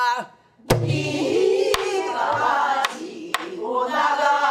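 A group of students sings back a pansori line in unison, with several voices slightly out of step. Four sharp strokes on a buk barrel drum keep the rhythm.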